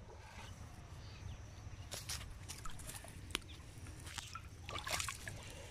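A hooked catfish thrashing and splashing in shallow water as it is hauled out onto the bank, with irregular splashes and sloshes, the biggest about five seconds in.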